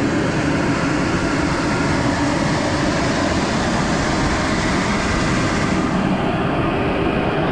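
Tractor running steadily with a seed drill hitched, a continuous mechanical noise; a high hiss over it drops away about six seconds in.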